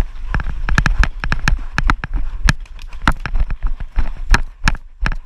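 Running footsteps on grass: quick, uneven thuds, three or four a second, over a low rumble.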